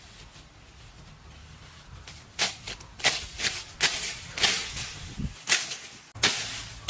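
A series of sharp strikes or scrapes, about two a second, starting about two and a half seconds in after a faint steady background.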